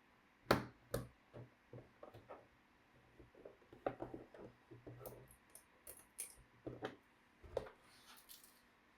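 Irregular clicks, taps and light knocks from hands and tools working on a laptop during disassembly. The loudest knock comes about half a second in, and a short scraping hiss comes near the end.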